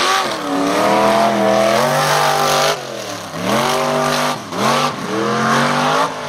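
Mud racing truck's engine revving hard as it runs the mud track, its pitch climbing; the revs fall sharply about three seconds in and again a little over a second later, each time climbing back up.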